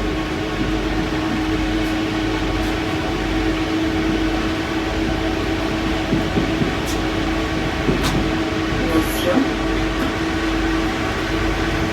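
Paris Métro MP05 rubber-tyred train running between stations: steady rolling noise with a motor whine held at one pitch and a few faint clicks.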